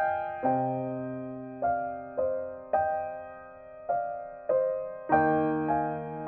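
Solo piano playing a slow piece: notes and chords struck about once a second, each left to ring and fade before the next.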